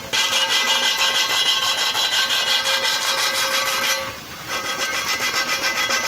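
Power tool running with a steady motor tone and a fast rhythmic rubbing scrape, easing off briefly about four seconds in.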